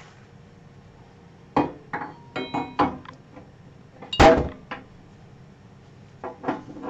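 Cast-iron lathe tool rests being swapped by hand: a string of metal clanks and clinks, some briefly ringing, as one rest is pulled from the banjo and a shorter one is picked up and fitted. The loudest knock comes about four seconds in.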